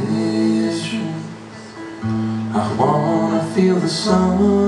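A live rock band playing: guitar with long held notes over bass, with some male singing.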